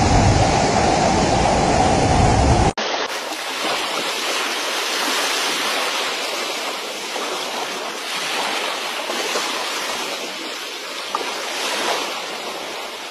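Fast muddy floodwater rushing past in a steady torrent. About three seconds in there is an abrupt cut to another recording of rushing water that sounds thinner, without the deep rumble.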